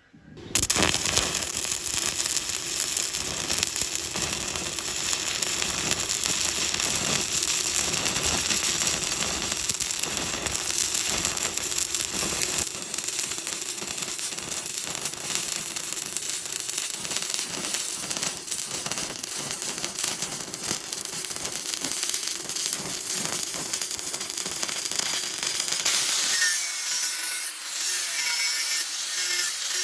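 Stick welding arc on steel plate: the arc strikes about half a second in and then crackles and sizzles steadily as the electrode burns along the joint, the crackle becoming thinner and higher near the end.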